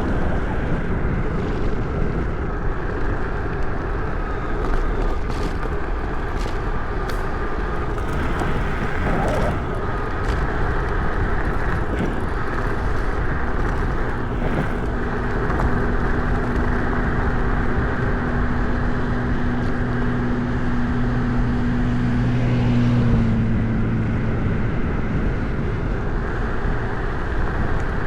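Electric scooter riding noise: a steady rush of wind and tyre rumble over a rough, debris-strewn road, with a few sharp clicks. A steady low hum comes in about twelve seconds in, grows louder, and stops about twenty-four seconds in.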